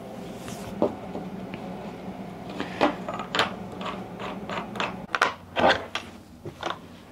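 Scattered knocks and clicks from a plush cat tree being assembled, as its parts are handled, fitted and fastened, over a steady low hum.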